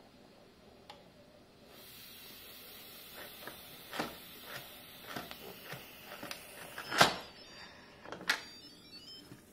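Instant Pot lid being twisted and lifted off: a series of plastic clicks and clunks, loudest about seven seconds in, over a steady hiss that starts about two seconds in.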